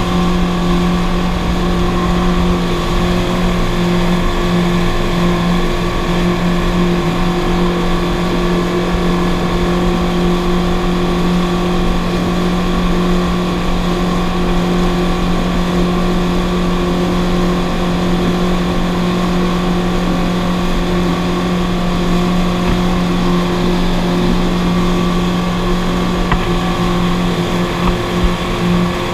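Motorboat engine running at a steady cruising speed under load, towing a tube, with an unchanging drone over the rush of the churning wake.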